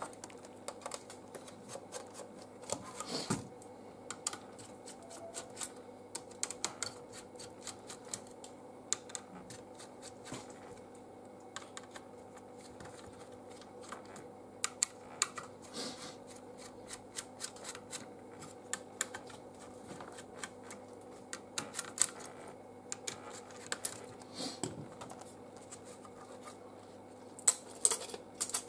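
Irregular small clicks, taps and knocks of a laptop motherboard, with its heatsink and fan attached, being handled and worked on with a small tool on a bench mat, over a faint steady hum.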